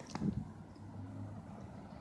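Street traffic noise, with a brief thump near the start.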